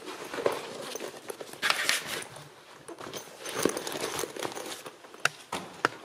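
Scuffing and rustling of a person clambering through a tight rock passage, shoes and clothing brushing on stone, with scattered sharp knocks, two of the loudest near the end.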